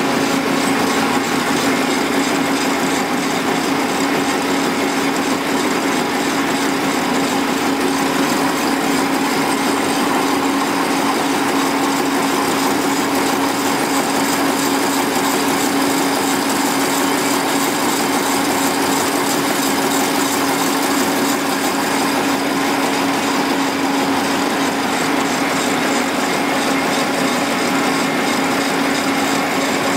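Multitec G5 web offset press running steadily at speed: a continuous mechanical hum of rollers and drive, with one strong steady low tone under it.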